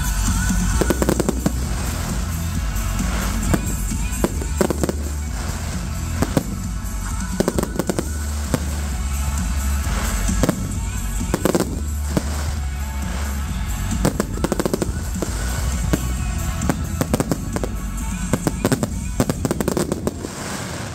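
Fireworks display: many shell bursts banging in quick, irregular succession over loud music with a heavy bass.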